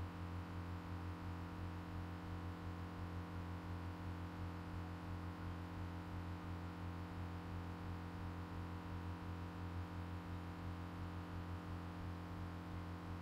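Steady low electrical hum with a faint hiss, unchanging throughout; no other sound stands out.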